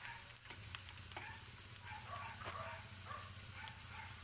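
Potato slices frying in a pan of shallow oil, a steady sizzle with scattered small pops. Short animal calls sound in the background.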